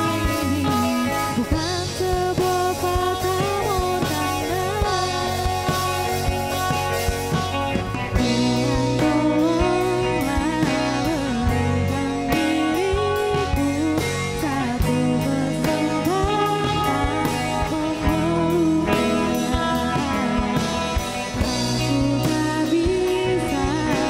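A live rock band playing: a woman sings lead into a microphone over electric guitars, bass guitar and drum kit.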